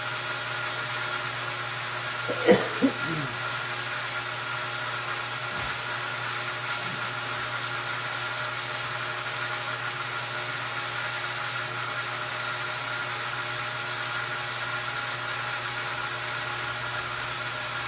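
Lathe running steadily with a constant whine while facing a piston. A brief sharp sound comes about two and a half seconds in.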